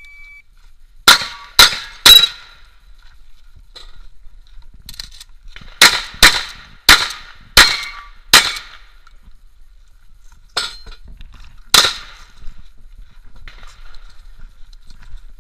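A shot timer gives a short electronic beep, then a Remington 870 pump-action shotgun fires about ten times in three quick strings of three, five and two shots, each shot with a brief ringing tail.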